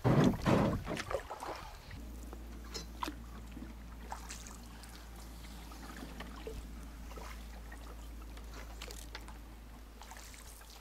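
Canoe paddling on calm water: a louder splash of paddle strokes in the first second or so, then a steady low hum with scattered light drips and clicks from the paddle and hull.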